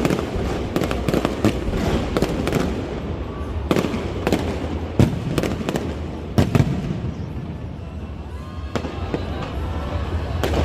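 Aerial fireworks bursting in an irregular rapid series of sharp bangs and crackles over a steady low rumble, thinning out in the later seconds.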